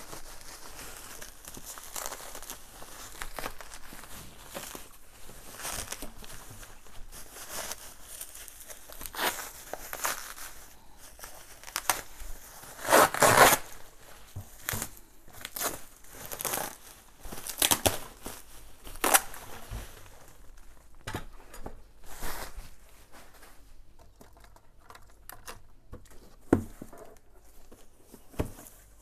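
Bubble wrap and plastic packing crinkling, rustling and tearing as a parcel is unwrapped by hand, in a run of short sharp bursts. The loudest crackling comes about halfway through; the last third holds sparser, quieter rustles.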